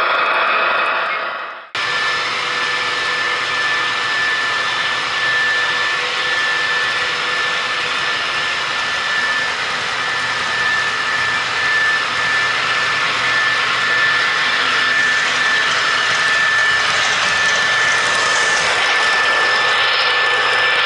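Model diesel locomotive running on a layout: the steady engine sound of an MTH ES44AC GEVO model together with its wheels rolling on the track, with a steady high tone over the rumble. The sound dips briefly about two seconds in, then carries on unchanged.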